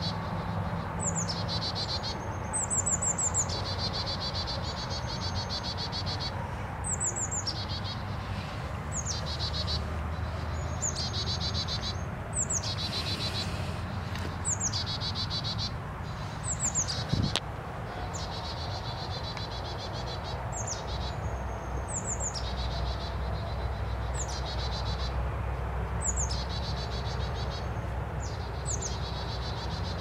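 A small animal's high-pitched call repeating every second or two, with a few pauses: each call a quick falling chirp followed by a buzzy trill. A steady low rumble runs underneath.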